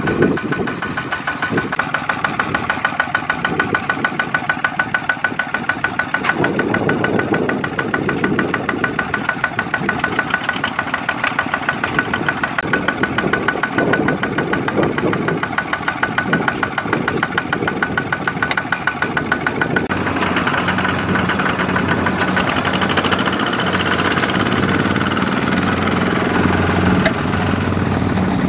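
Single-cylinder diesel engine of a Kubota ZT140 walk-behind tractor running with an even, rhythmic chug. About twenty seconds in its note changes and it runs more evenly.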